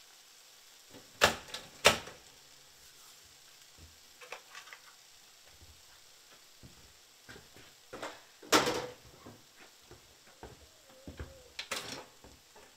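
Stainless two-slice pop-up toaster: two sharp clicks about a second in as the lever is pushed down, then the loudest click, with a short ring, about eight and a half seconds in as the toast pops up. A few lighter clicks follow near the end.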